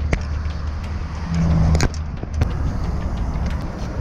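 Motorcycle engine idling in a steady low rumble, with road traffic and a few sharp knocks, the loudest about two seconds in.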